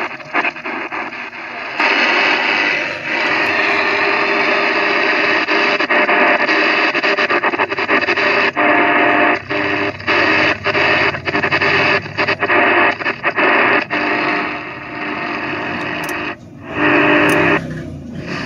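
KTF-1647 portable radio receiver giving out loud static hiss as its tuning knob is turned. The hiss cuts out and comes back many times in quick breaks, with faint steady tones in it.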